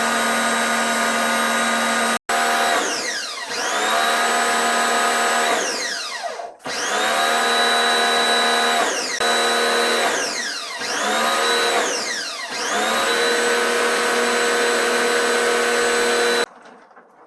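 A small electric motor running loudly. Its pitch sags steeply and recovers about five times, as if briefly loaded, and it cuts off abruptly near the end.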